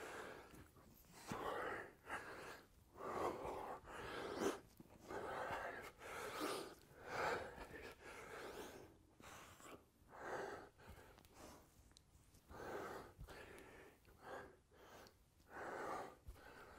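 A man breathing hard through a set of band-assisted chest-to-bar pull-ups: faint, sharp breaths about once a second, coming further apart in the second half.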